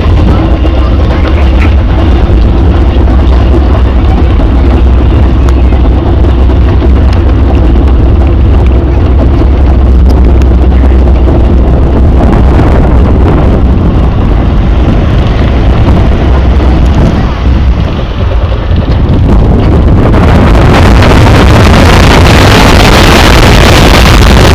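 Vekoma steel roller coaster train running along its track, with a heavy low rumble and wind rushing over the microphone; the rush grows louder and brighter about twenty seconds in.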